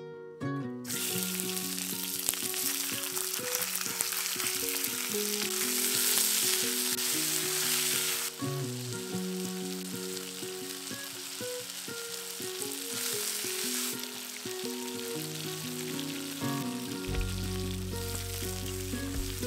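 Chicken pieces sizzling loudly as they hit hot oil in an iron kadai, starting suddenly about a second in. The sizzle eases a little about eight seconds in and carries on as steady frying while the pieces are stirred. Light plucked background music plays underneath.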